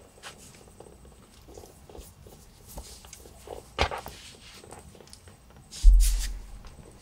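Faint scratching and rustling of a newborn kitten squirming on a plastic pet heating mat under a person's stroking hand, with a sharper click about four seconds in. A loud low rumble comes near the end.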